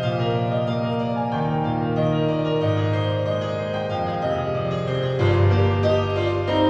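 Background music on a keyboard: sustained chords that change every second or two.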